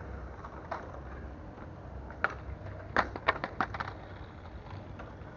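A quick run of sharp clicks and taps about two to four seconds in, over a low steady rumble: handling noise from the fisherman's gear or camera.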